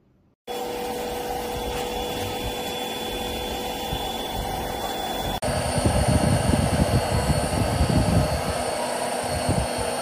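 Airbot Supersonics Aura cordless stick vacuum running with a steady motor whine. About five seconds in the sound cuts abruptly to the vacuum being pushed across a tiled floor, louder and rougher, with a rumble from the floor head.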